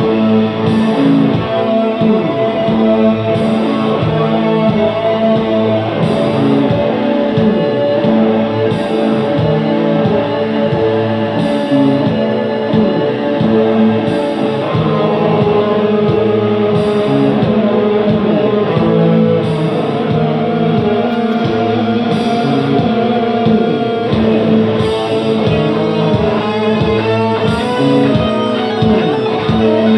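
Electric guitar played live: sustained, layered chords and held notes, with a soft high tick repeating about every second and a third.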